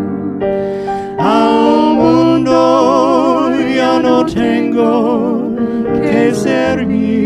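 Gospel song playing: a singer holding long notes with vibrato over instrumental accompaniment, the music swelling about a second in.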